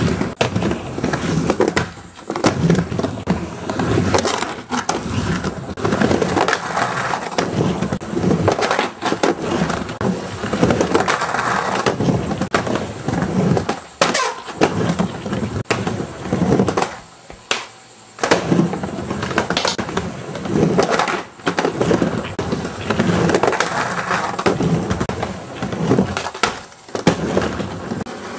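Skateboard rolling back and forth on a micro ramp: a steady rumble of wheels broken by knocks and scrapes as the trucks hit and grind the pool coping, with a short lull a little past halfway.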